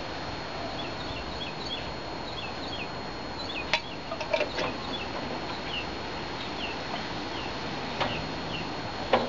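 Small birds chirping repeatedly, short quick up-and-down chirps. A few sharp clicks and knocks, from the basting brush and the metal smoker grate, break in about four seconds in and again about eight seconds in, with the loudest click near the end.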